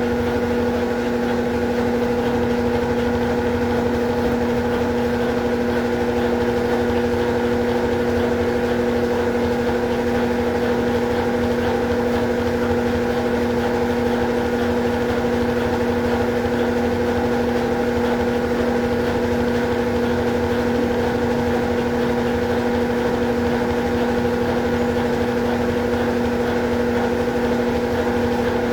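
Consul Facilite CWG11 11 kg washing machine running in its rinse cycle: a steady, unbroken hum with a low rumble underneath.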